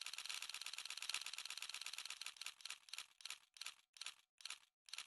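A rapid run of dry mechanical clicks, about ten a second at first, that slows steadily to about two a second, like something spinning and winding down.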